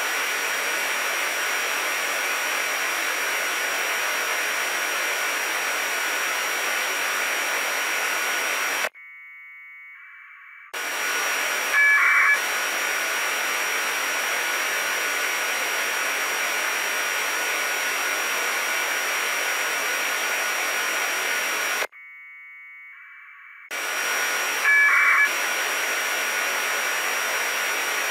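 Receiver static hiss from an RTL2832 SDR dongle tuned to the 145.825 MHz APRS channel. Twice the hiss drops out for about two seconds while an APRS packet burst of warbling 1200/2200 Hz modem tones comes through. About a second after each packet there is a short, louder tone.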